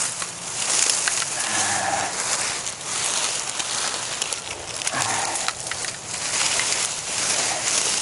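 Dry reed stalks and grass rustling and crackling as they are pushed and handled, with scattered sharp snaps.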